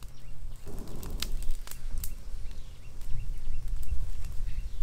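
Outdoor breeze rumbling on the microphone, with scattered sharp clicks and crackles from a smouldering twig fire and feet shifting on dry leaf litter.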